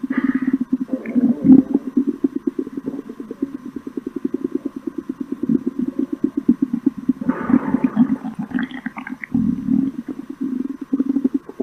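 Stomach growling: a continuous, rapidly pulsing low rumble, with a louder gurgling stretch about two-thirds of the way through.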